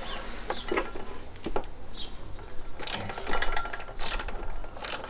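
Socket ratchet wrench undoing a 17 mm cylinder head bolt: a few scattered metal clinks of the socket on the bolt, then a dense run of ratchet clicks from about three seconds in as the bolt is wound out.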